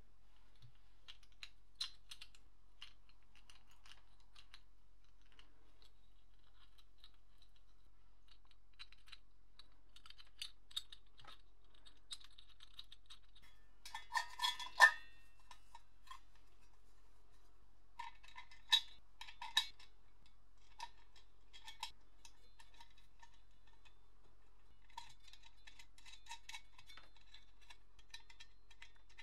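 Light clicks and metallic clinks of small metal parts being handled. A few louder ringing clinks come about halfway through and again around two-thirds of the way, and a run of quick, even ticks comes near the end.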